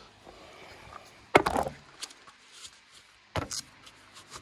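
Knocks of objects set down and picked up on wooden pallet boards: one sharp knock about a second and a half in, then a pair of lighter knocks near the end.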